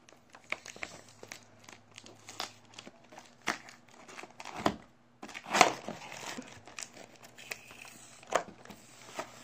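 Packing tape being peeled and pulled off a plastic toy box insert, with irregular crinkling and rustling of the packaging and scattered sharp clicks; the loudest crackle comes about five and a half seconds in.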